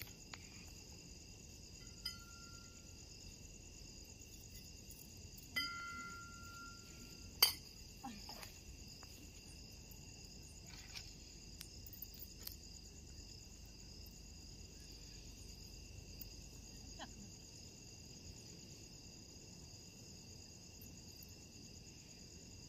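Crickets chirping steadily in a continuous night chorus. A few faint metallic rings and clinks come through it, the clearest about five and a half seconds in, followed by a sharp click.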